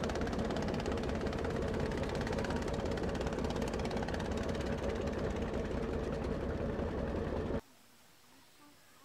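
Boat engine running steadily and loudly with a fast, even pulse, cutting off suddenly near the end.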